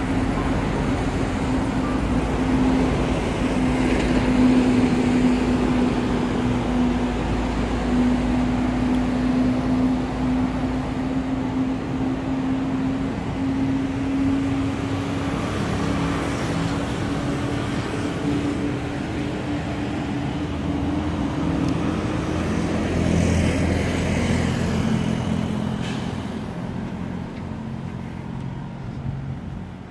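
City road traffic with a steady engine hum that creeps slightly up in pitch for about twenty seconds, fading away near the end.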